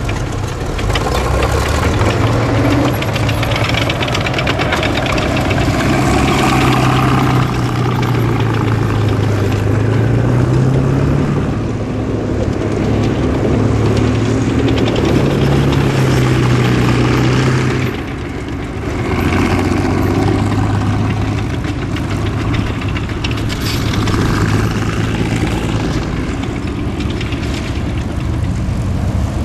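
T-34/85 tank's V-12 diesel engine running under load as the tank drives over rough ground, its note rising and falling with the throttle, over the clatter of its steel tracks. The engine eases off briefly about two-thirds of the way through, then picks up again.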